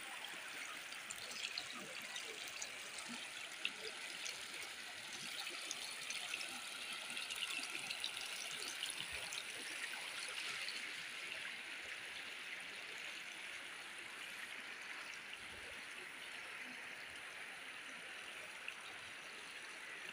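Muddy floodwater flowing along a street, a steady rushing wash of water with faint small splashes.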